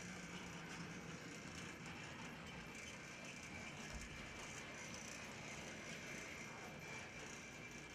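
HO-scale brass Big Boy model locomotive running on track: a faint, steady whir from its electric motor and gearing, with a thin steady high tone over a low hum.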